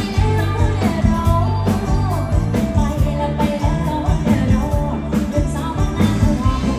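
A live band plays music with a strong bass and drum beat, and a voice sings a wavering melody over it.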